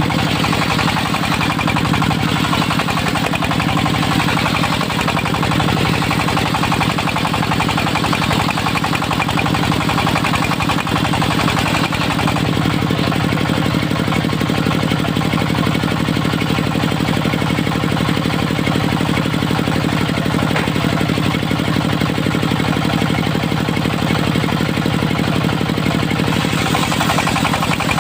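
Dongfeng diesel engine running steadily, driving a homemade portable circular sawmill.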